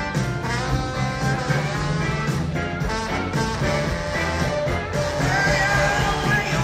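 Live band playing, with a trombone soloing over the rhythm section.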